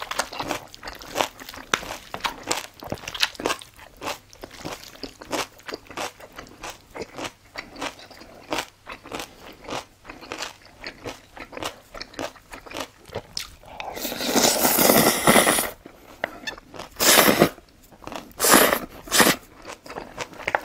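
Close-miked mouth sounds of eating: continual wet chewing and lip smacking, then a long loud slurp of gan-jjajang noodles a little past the middle and a few shorter slurps and smacks near the end.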